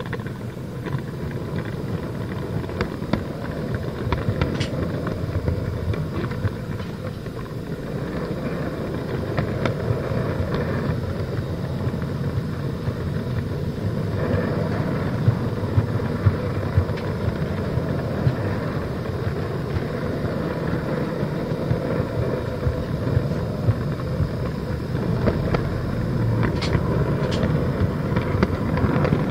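N-gauge model railway camera car running along the track: a steady motor whir and wheel rumble on the rails, with sharp clicks as the wheels cross rail joints, coming more often near the end as it runs over turnouts.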